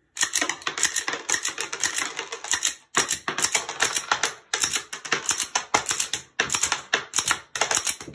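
Snap caps being worked by hand through a Shield Arms 15-round Glock 43X magazine: a fast, steady run of sharp plastic-and-metal clicks and clatter. The clicking comes in runs, with brief pauses about every one and a half to two seconds.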